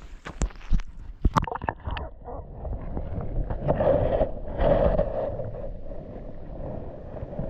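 Sharp knocks and splashing as the camera goes into the pond, then, from about two seconds in, the muffled low rumble and sloshing of water heard by a microphone held underwater.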